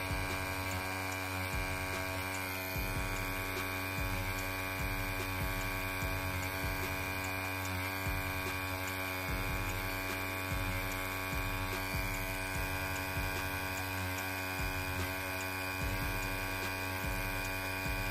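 Rhein EM145 'Lipstick' wireless tattoo pen's motor running steadily at lowered voltage, a continuous buzzing hum with a high whine in it, as its 3-round liner needle whip-shades into silicone practice skin.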